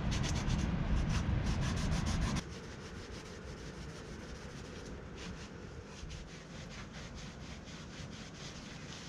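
Solvent-soaked rag rubbing and wiping over bare metal of a car body, degreasing it. The rubbing is louder for the first two seconds or so, then drops suddenly to quieter, lighter strokes.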